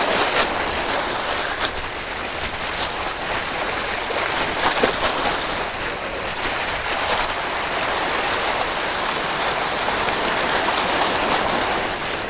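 Small waves washing against the boulders of a rocky shoreline: a steady hiss of surf, with a few sharper splashes in the first five seconds.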